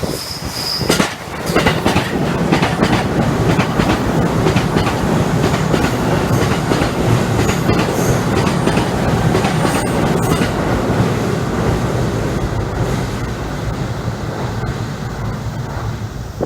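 Electric train running past on the track, its wheels clicking repeatedly over the rail joints. There is a brief high squeal near the start. The sound comes in suddenly and eases off slightly toward the end.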